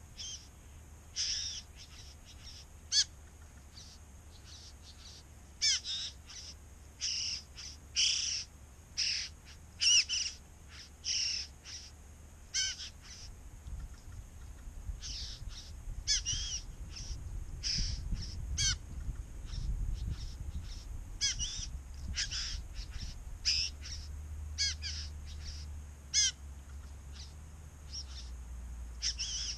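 Male satin bowerbird calling during his courtship display: an irregular run of short, sharp calls, some bending in pitch, about one or two a second with a few short pauses.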